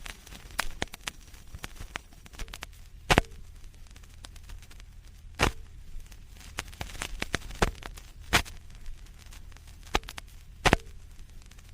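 Vinyl record surface noise without music: a low hum and faint hiss with irregular crackles and sharp pops, the loudest pops about every two to three seconds.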